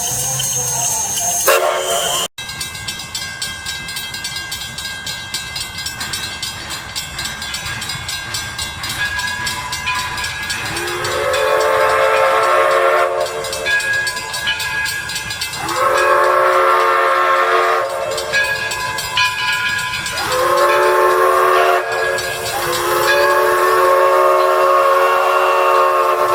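A steam locomotive's six-chime whistle blows four chords over a steady hiss of steam. Each blast slurs up in pitch as it opens. The third blast is short and the last is longest, the long-long-short-long pattern sounded for a grade crossing.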